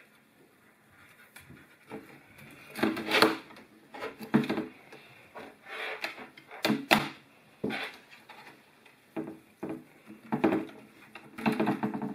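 Handling noise as magnetic LED light strips are set into a steel fluorescent fixture housing: irregular knocks, clacks and scrapes every second or so, with a few sharp clicks as the strips snap on.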